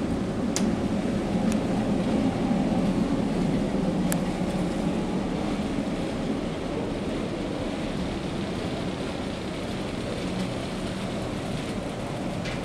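Steady low drone of the ferry's engines and machinery heard inside a passenger lounge, swelling slightly in the first few seconds. Two faint clicks, about half a second and four seconds in.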